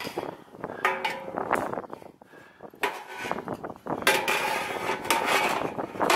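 Metal knocks and clanks from climbing an aluminium ladder while carrying a metal can of roofing tar and a hammer, as the can, tools and gloved hands bump the rungs. The knocks come in two clusters, about a second in and again from about four seconds in, some with a short ringing.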